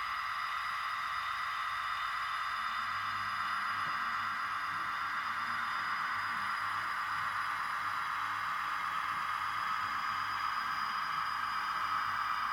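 Model diesel locomotive's small electric motor whining steadily as it runs slowly along the track, with a faint low hum beneath.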